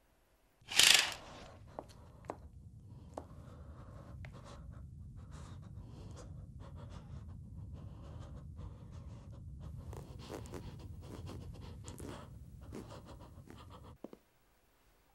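A sudden loud rasping swish about a second in, then a low steady rumble under soft rustling, scratching and quick, frightened breathing, all cut off abruptly near the end.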